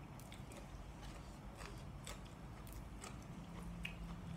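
A person chewing a mouthful of food, with soft scattered clicks and faint mouth noises.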